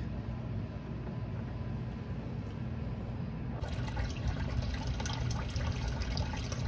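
A steady low hum, then from a little past halfway water runs and trickles off the lower edge of a miller table (a gold-concentrate cleanup table) and splashes into the tub beneath it.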